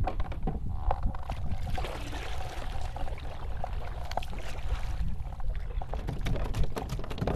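Kayak paddle strokes dipping and dripping in calm water, with a steady low rumble of wind on the microphone. A few sharp clicks and knocks near the end.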